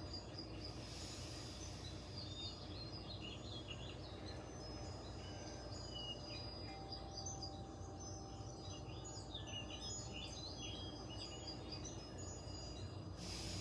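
Faint chirping of small birds, many short high chirps throughout, over a low steady hum. A deep breath hisses briefly about a second in and again near the end.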